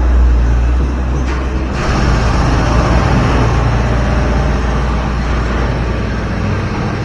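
Steady low motor-like hum, with a rushing hiss that grows louder about two seconds in.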